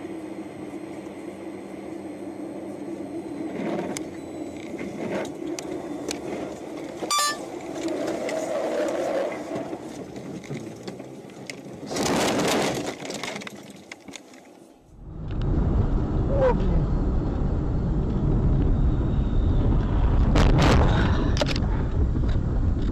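Car interior road noise from a moving vehicle with a steady hum, a few sharp knocks and a brief loud noisy surge about twelve seconds in. After about fifteen seconds it cuts to a much heavier low rumble of wind and road noise.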